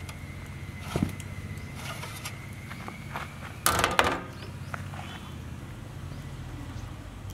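Handling noise on a large steel tray as a cloth is laid over and lifted off steamed idlis: a knock about a second in and a short, loud rustling clatter near the middle, over a low steady hum.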